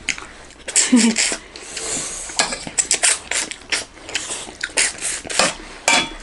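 Close-miked eating: chewing and mouth sounds with sharp clicks of a spoon against a steel plate. A short voiced sound comes about a second in.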